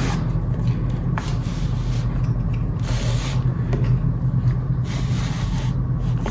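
A scooter battery pack being pushed and slid into the scooter's deck compartment: a few short scraping, rubbing noises over a steady low hum.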